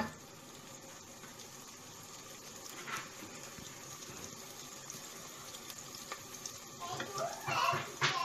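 Diced onions frying in ghee in a nonstick pot, a soft steady sizzle as they are browned towards birista. A brief knock at the very start as the wooden spoon is set down, and a voice near the end.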